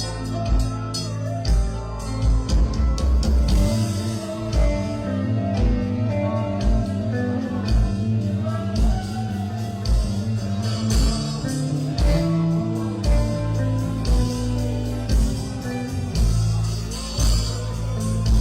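A song with a steady beat: bass and drums, guitar, and a singing voice.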